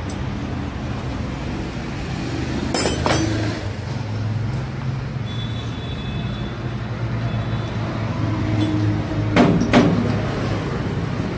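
Steady low drone of a vehicle engine running, with two short bursts of metal clanking from tools and engine parts, about three seconds in and again near the end.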